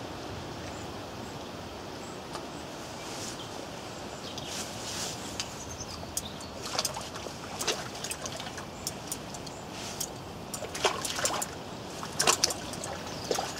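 A hooked bream splashing at the water's surface as it is played in close to the bank. The splashes start about a third of the way in as scattered short sounds and come thicker and louder near the end.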